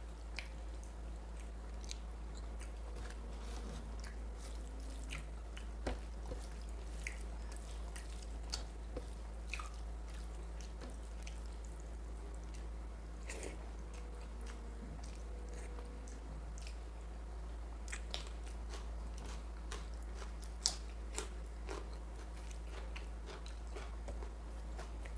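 Close-miked chewing and biting: a person eating mutton curry with rice, with scattered wet mouth clicks and smacks, one sharper click about twenty seconds in. A steady low hum underlies it.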